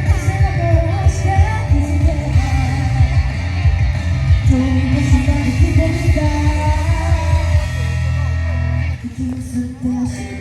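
Loud pop-rock song with singing over a dense drum beat, thinning out briefly about nine seconds in.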